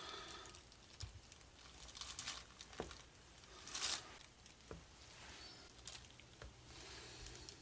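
Faint handling sounds of a knife cutting and moving a freshly set bar of lye soap: scattered light taps and short scrapes, the loudest a little before the middle.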